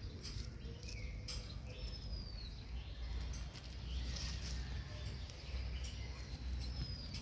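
Light rustling and crackling in dry leaf litter over a low handling rumble, with two faint high bird chirps that slide downward, one about two seconds in and one near the end.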